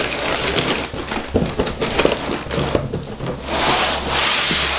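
Packing paper rustling and crinkling as it is handled around a boxed brake part, with small knocks of handling throughout and a louder stretch of crumpling near the end.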